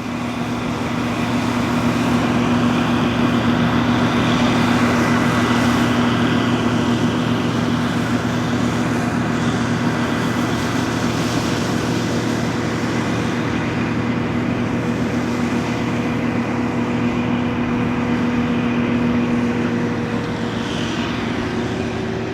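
Massey Ferguson 40RS combine harvester running steadily while harvesting: an even engine and threshing drone with a thin high whine over it. It grows louder over the first couple of seconds and eases slightly near the end.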